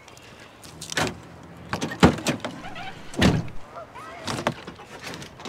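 A handful of sharp clicks and clunks from a truck's tailgate and the lock of a wooden truck-bed camper door being opened with keys, about one a second, the loudest about two and three seconds in.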